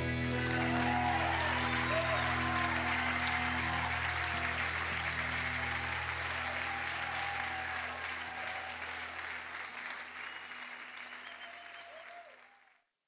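Congregation applauding with a few cheers as the last held chord of the music fades beneath it. The applause thins toward the end, and the sound cuts off abruptly just before the end.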